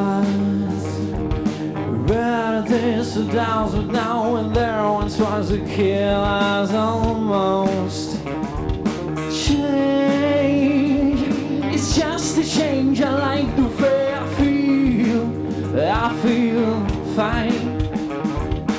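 Live heavy-funk rock band playing: a male lead singer's voice through a microphone over electric guitar, bass and drum kit.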